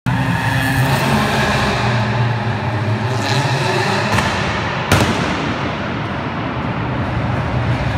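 Citroën Saxo rallycross car's engine running very loud, with a sharp gunshot-like backfire bang about five seconds in.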